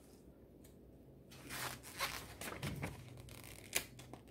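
Paper pages of an instruction booklet rustling as they are turned and folded back by hand, in a few soft swishes starting about a second and a half in.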